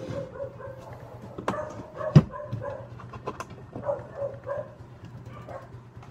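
A dog barking and yipping again and again in short calls, with one sharp knock about two seconds in, the loudest sound.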